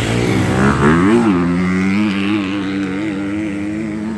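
Dirt bike engine revving hard through deep mud: the pitch swoops up and back down about a second in, then holds at steady high revs.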